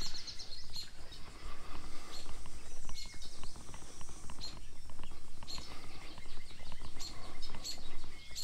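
Birds chirping: short, high calls repeated every second or two over a steady low rumble.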